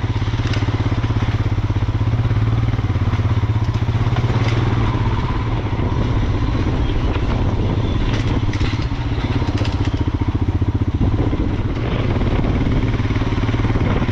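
Royal Enfield Himalayan's single-cylinder engine running steadily at low revs with an even pulsing beat as the motorcycle rides over a rocky dirt track. Occasional clicks and clatter of stones under the tyres.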